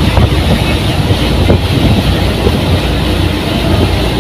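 Speedboat under way, its engine running steadily in a loud, even rumble mixed with rushing water.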